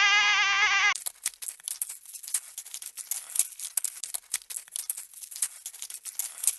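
A sheep bleats in one long wavering call that ends about a second in. Then dense, irregular crackling of many small clicks runs on, a sound effect standing in for a spider.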